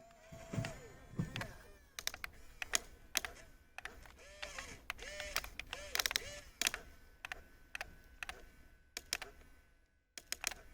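Radio-controlled model excavator at work: its small electric motors whine in short rises and falls of pitch, with many sharp clicks and clatter. A steady high whine runs through the later part.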